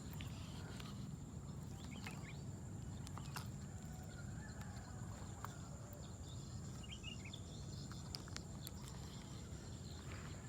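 Quiet outdoor ambience: a low rumble under a steady high-pitched hum, with scattered faint clicks and a few short chirps.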